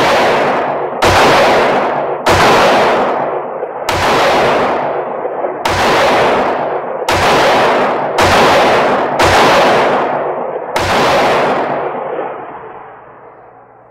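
Glock 17L 9 mm pistol fired nine times at a steady pace, a shot every second or so, each shot ringing with heavy echo in an enclosed indoor range booth. The echo of the last shot fades away over a few seconds.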